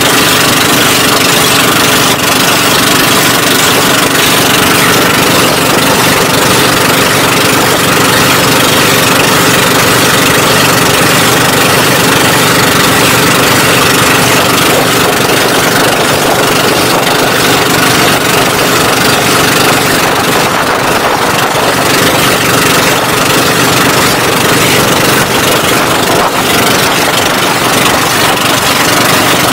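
Engine of a Philippine outrigger boat (bangka) running steadily under way, loud and unchanging.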